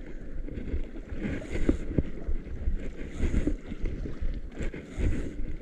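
Wind buffeting the microphone over open sea, with water washing against a small outrigger boat; a hiss swells and fades about every one and a half to two seconds.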